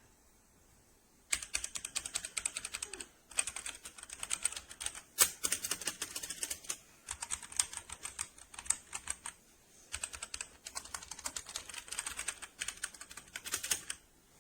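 Fast typing on a computer keyboard: rapid runs of keystroke clicks in four stretches with short pauses between them.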